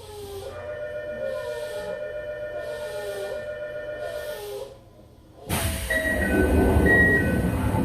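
On-board sound of a Toei 5300-series electric train at a station about to depart: a steady whine with a few falling tones, then after a short lull a sudden loud rush of noise with hissing about five and a half seconds in.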